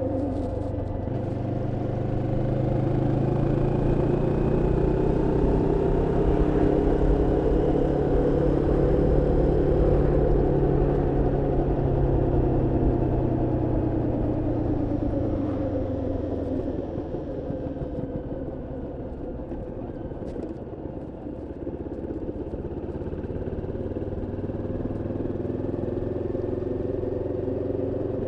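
Moto Morini X-Cape 649's parallel-twin engine on the road during break-in: it climbs in pitch and loudness as the bike accelerates, eases off and drops for several seconds, then begins to build again near the end.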